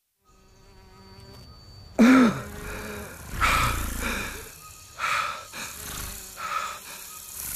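Designed fantasy-forest ambience fading in out of silence: buzzing, insect-like creature sounds that come in four bursts about every second and a half. The loudest burst is about two seconds in, with a low pitch that rises and falls.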